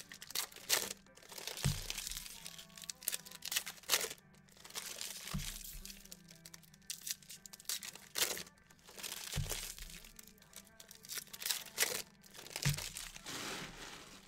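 Plastic packaging crinkling and crackling in repeated short bursts as it is handled, over quiet background music with a slow beat.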